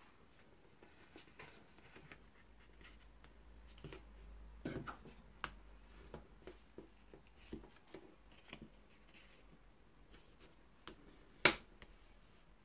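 Bone folder rubbing along the fold of card stock to burnish the crease: faint scraping strokes and scattered light clicks, with one sharp click near the end.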